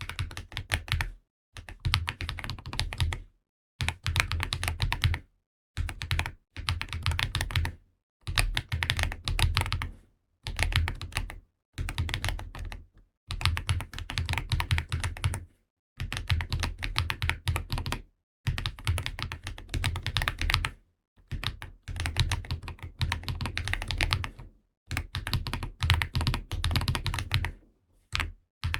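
Typing on a mechanical keyboard fitted with GravaStar UFO magnetic Hall-effect switches, a polycarbonate plate, a KBDfans GT-80 case and PBT Cherry-profile keycaps. Fast runs of keystrokes, each a second or two long, are broken by short pauses.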